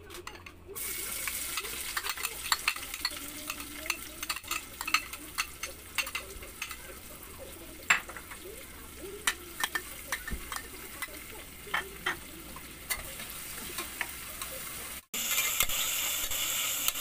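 Sliced onion and bell pepper sizzling as they are sautéed in a metal pot. The hiss starts about a second in as the vegetables go in, and many sharp clicks and scrapes come from a turner stirring against the pot. The sizzle is louder near the end.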